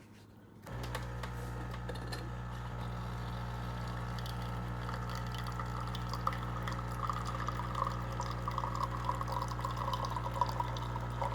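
Espresso machine running, a steady hum with water trickling and spattering. It switches on about a second in, and the trickling grows busier toward the end.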